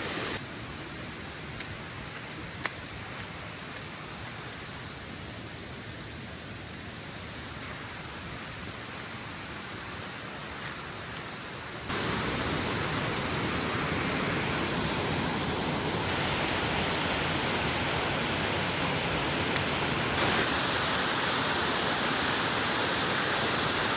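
Steady rushing of a waterfall's cascades. The sound steps louder or changes at several cuts, about halfway through and again later.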